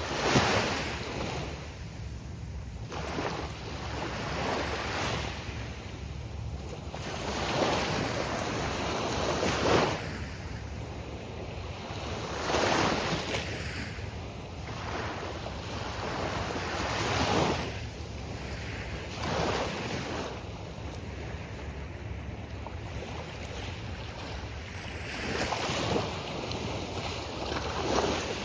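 Gulf of Mexico surf breaking and washing up the beach in repeated surges every few seconds, each swelling and fading, over a steady low wind rumble on the microphone.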